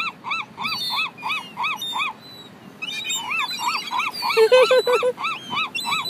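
Young gulls squeaking: a run of short, high, arching begging calls about four a second, pausing briefly about two seconds in, then coming back thicker, with several birds calling over one another.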